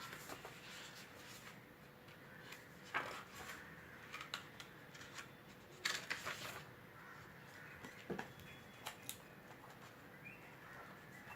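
Pages of a paper tarot guidebook being turned by hand: a few separate soft rustles and flicks, the strongest about three and six seconds in, with lighter ones around eight and nine seconds.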